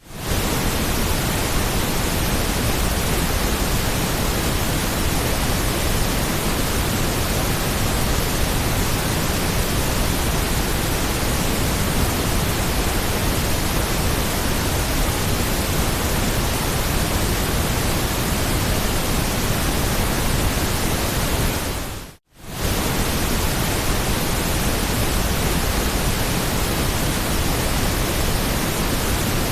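Steady white noise, an even hiss for lulling a colicky baby to sleep. It fades out and back in over about half a second, about 22 seconds in.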